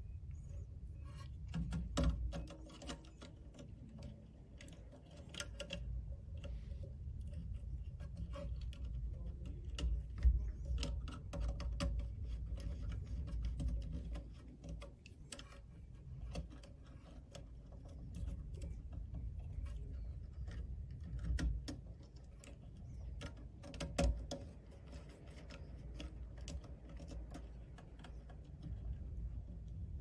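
Irregular light clicks and ticks of a small precision screwdriver and wire ends being worked into a circuit board's screw terminal block, over a low rumble.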